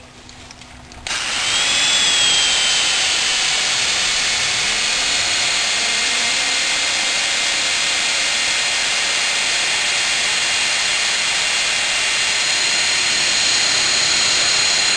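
Heavy electric drill starts about a second in and runs steadily, spinning the Maybach HL230 V12's oil pump through a drive spud to pressure-test the engine's oiling system. A high whine rises briefly as the drill gets up to speed, then holds steady.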